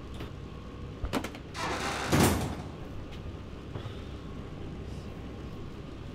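Heavy walk-in freezer door swinging shut: a couple of sharp clicks about a second in, then a rising rush that ends in a heavy thud about two seconds in, over a steady low hum. This is the door closing that traps him inside.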